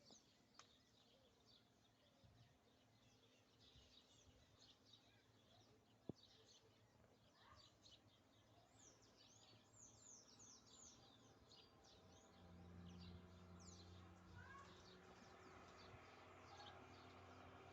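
Faint chirping of small songbirds: many short, high, falling chirps, growing busier through the second half. A low steady hum joins in about twelve seconds in.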